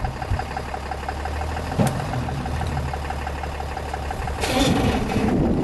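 Pickup truck engine idling with a steady low hum, a sharp click about two seconds in and a short hiss near the end.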